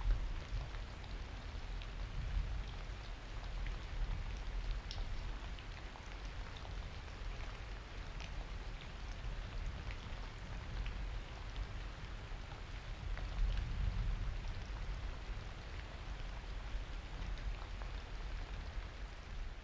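Steady rain with scattered individual drops ticking over a low rumble.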